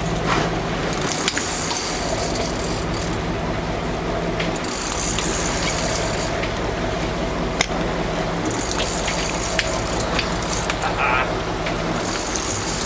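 Boat engine running steadily under water rushing and splashing past the hull, the splash swelling and fading several times, with a few sharp clicks.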